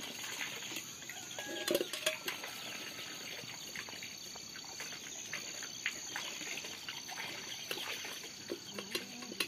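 Insects chirring outdoors in a steady, high-pitched drone, with scattered short bird chirps over it.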